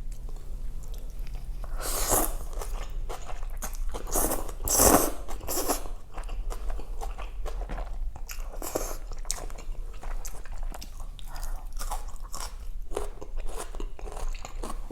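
Close-miked eating: chewing and biting food with crunchy, crackling mouth sounds, and a few louder, longer bursts about two and five seconds in.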